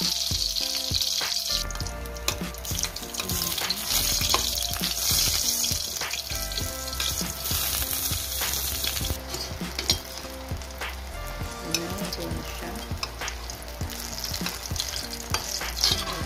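Eggplant slices sizzling as they fry in hot oil in a wok. A metal slotted spatula scrapes and clicks against the pan as the pieces are turned.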